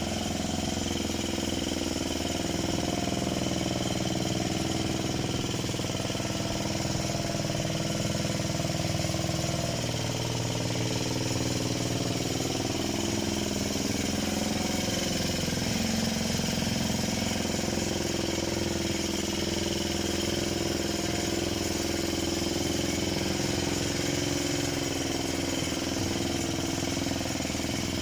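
Parma BP-058 petrol chainsaw engine running steadily at an even speed, with no clear revving.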